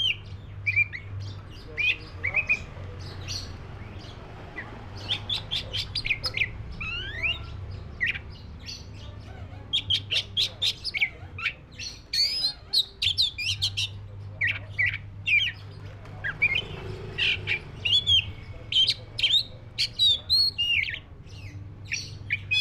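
Black-breasted Oriental magpie-robin (kacer dada hitam) singing a varied song of rapid sharp notes and slurred whistles, coming in bursts separated by short pauses, over a low steady hum.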